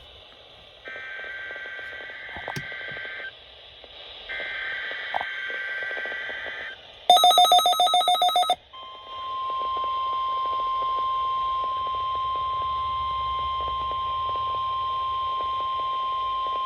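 NOAA Weather Radio EAS test alert: the last two of the three SAME digital header bursts, each a screeching data buzz of about two and a half seconds, then a loud burst of rapid beeping for about a second and a half. The steady 1050 Hz warning alarm tone follows, starting about nine seconds in.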